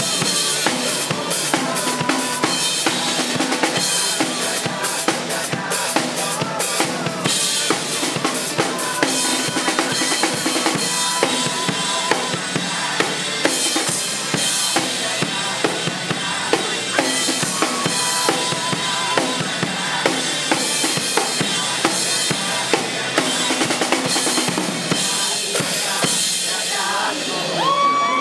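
Acoustic drum kit played live, with kick drum, snare and cymbals driving a steady rock beat over a pop-rock backing track with singing. The playing thins out near the end as the song finishes.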